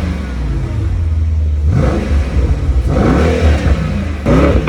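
Mercedes-AMG E63's twin-turbo V8 on its stock exhaust, revved three times in quick blips, each rise in pitch falling back toward idle, with the drive mode set to Race.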